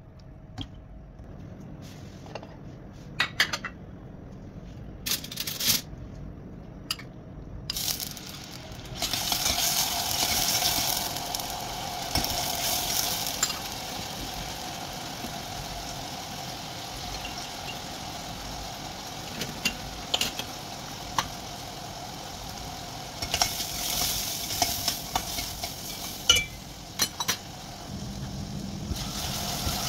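Chopped onion sizzling as it fries in oil in a stainless steel pot, sautéed until soft and golden. Sharp clicks of a spoon against the pot come throughout, and the steady sizzle sets in about eight or nine seconds in after a few scattered clicks.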